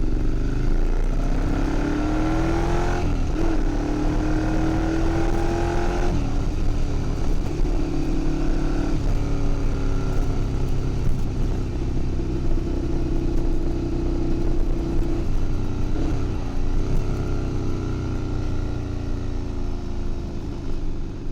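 Ducati Monster 696's air-cooled L-twin running through a straight pipe, loud and raw. Its note climbs, drops sharply about three seconds in, climbs again and drops about six seconds in. It then holds a mostly steady pitch with a brief dip near the end.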